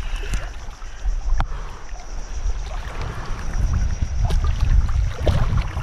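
Wind rumbling on the microphone over water sloshing at the water's edge, with a sharp click about a second and a half in.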